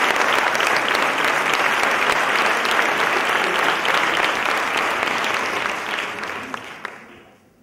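Theatre audience applauding with dense, steady clapping that dies away near the end.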